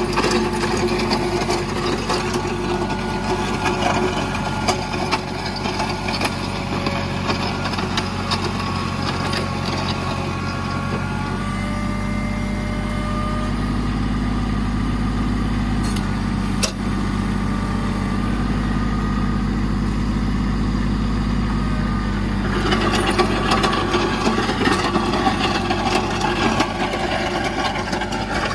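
Mahindra compact tractor's diesel engine running steadily as it drags a box blade over a gravel driveway, with the scraping and crunching of gravel and stones under the blade. The scraping drops back for a stretch in the middle while the engine note stays loud, then returns near the end.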